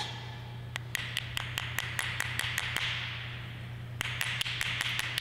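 T-handle hex key spun quickly to drive a screw into a machined aluminium part, giving a run of light, regular clicks, about five a second, over a soft hiss. The clicking stops briefly about three seconds in and then resumes.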